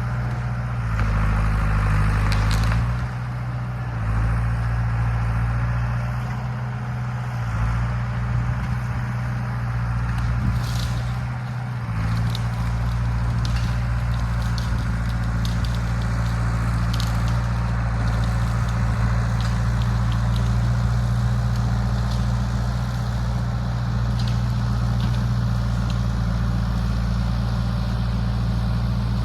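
John Deere 450B crawler dozer's engine running steadily under load, its pitch shifting a few times in the first dozen seconds, with scattered sharp cracks and snaps over it.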